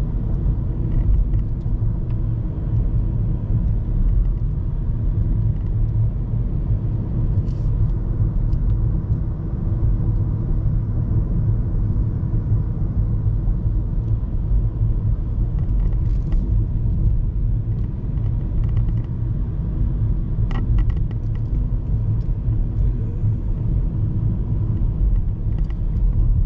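Steady low rumble of a vehicle driving along a highway: engine and tyre road noise, with a few faint clicks now and then.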